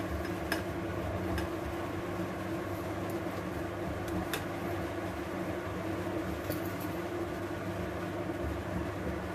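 Soft khoya being grated on a handheld grater with a steel blade: faint scraping with a few light clicks, over a steady low hum.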